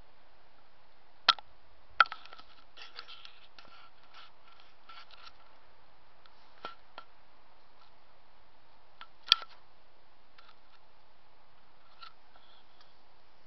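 Sharp clicks and taps from the camera being handled: three loud clicks, about a second, two seconds and nine seconds in, and a scatter of softer ticks between them, over a steady hiss.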